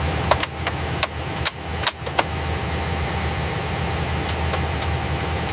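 Steady mechanical hum with a low drone, as of machinery or ventilation running, with scattered sharp clicks and taps, most of them in the first two seconds or so.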